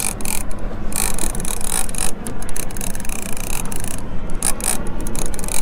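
Two-speed conventional fishing reel, set in low gear, clicking and ratcheting while a hooked shark is fought on the line. Irregular clicks over a steady rush of noise.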